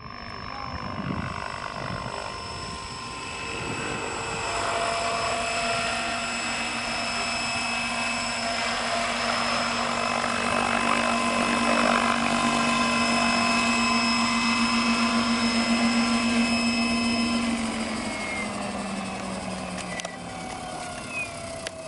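Radio-controlled scale Hughes 500E helicopter hovering low and landing, its motor and rotor running at a steady pitch with a pulsing rotor beat. Near the end, after touchdown, the pitch falls as the rotor winds down.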